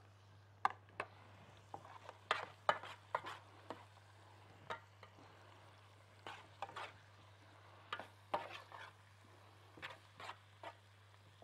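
Metal spoon stirring seasoned raw chicken pieces in a metal baking tray, with irregular clinks and scrapes against the tray over a faint steady low hum.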